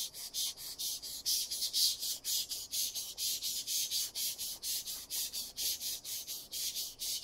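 Stainless steel carving knife blade stroked rapidly back and forth on a Japanese waterstone: an even, rhythmic scraping hiss of about five strokes a second. Its even sound is the sign that the sharpening angle is being held steady.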